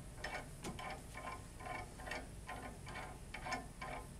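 Faint, irregular light metallic clicking, several ticks a second, as a gold-plated sample holder is turned by hand into the threaded bore of an LT3-OM flow cryostat.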